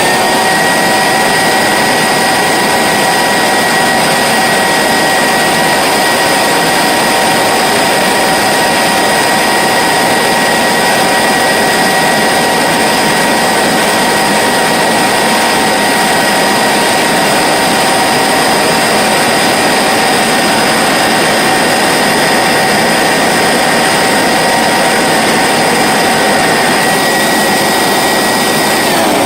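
Hoover SteamVac Widepath's bare 9.2-amp extractor motor running flat out on an airflow test adapter: a loud, steady, high whine over rushing air. Near the end it is switched off and the pitch starts to fall.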